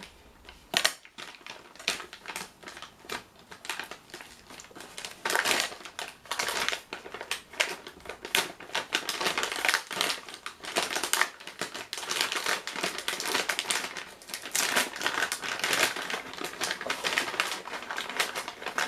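Packaging being opened and handled by hand: continuous crinkling and rustling with many sharp irregular clicks and crackles.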